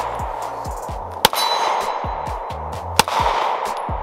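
Two shots from a SIG P320 subcompact pistol, about a second and three-quarters apart, over background music.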